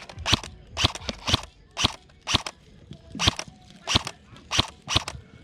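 Footsteps crunching on dry ground, about two steps a second with a short pause in the middle.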